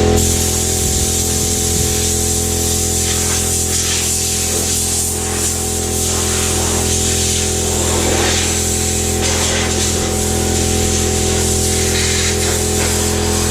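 Steady machine hum with a high hiss of air, as from a power tool at work.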